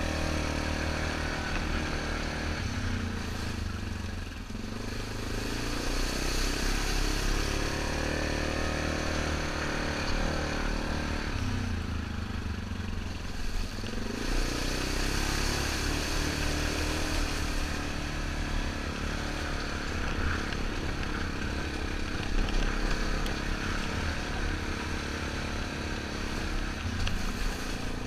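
2003 Yamaha Grizzly 660 ATV's single-cylinder four-stroke engine running under way, its note dropping off and climbing back twice, about three and eleven seconds in.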